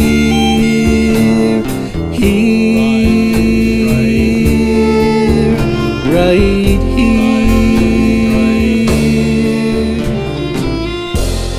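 Song with singing over instrumental backing, on long held notes, with a hiss coming in just before the end.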